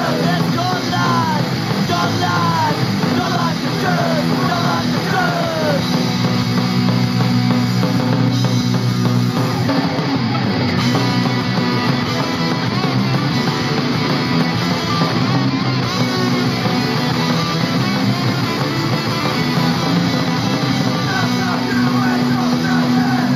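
Street punk song played from a 7-inch vinyl single: loud, with electric guitar.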